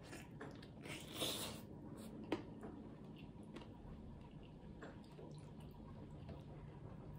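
Close eating sounds: a bite into a crisp fried piece and chewing, then soft squishing as fingers mix dal into rice, with a few faint clicks.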